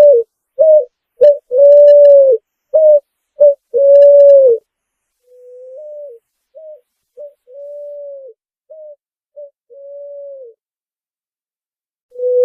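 Picazuro pigeon cooing: a phrase of low, hollow coos mixing long drawn notes with short clipped ones, repeated more faintly, then starting again loudly near the end.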